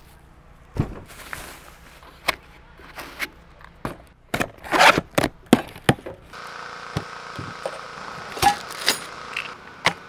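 Unboxing handling noise: knocks and clicks of foam packing and a cardboard parts box being set down, with plastic bags crinkling about five seconds in. A steady hiss runs in the background for about three seconds in the second half.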